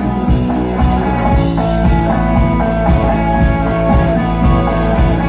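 Instrumental break in a rock song: guitars and drum kit playing without singing between lines of the chorus.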